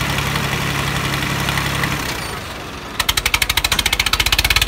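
Tractor diesel engines working under heavy load, pulling against each other. A steady drone dips briefly about two seconds in, then changes about a second later to loud, rapid, even exhaust pulses.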